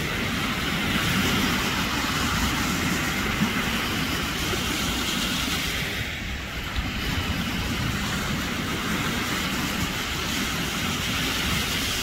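Sea waves washing and breaking against a rock breakwater, a steady hissing rush, under a rumbling buffet of wind on the microphone.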